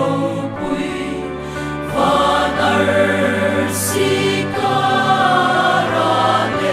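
Mixed choir of women's and men's voices singing a hymn in Mizo in sustained chords, swelling louder about two seconds in.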